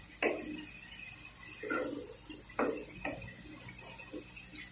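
A wooden spatula stirring thick, wet masala paste in a non-stick kadai: a few sharp knocks of the spatula against the pan, with soft wet sounds of the paste being turned.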